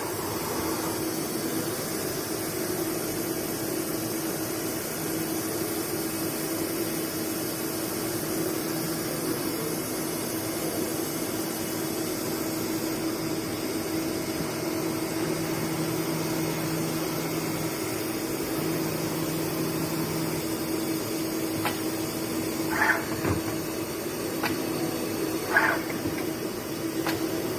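Mazak Integrex 100 IISY CNC turn-mill centre running with a steady machine hum. In the last several seconds come a few sharp clicks and three short, higher-pitched bursts.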